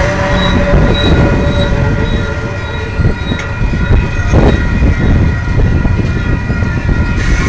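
Loaded coal hopper cars of a freight train rolling past close by: a steady rumble of steel wheels on the rails, with a high steady wheel squeal over it. A few sharp clanks come about three and four and a half seconds in.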